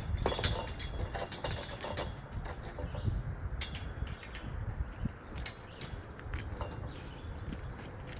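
Scattered light clicks and knocks of steel high-tunnel arch hardware being handled, over a steady low rumble.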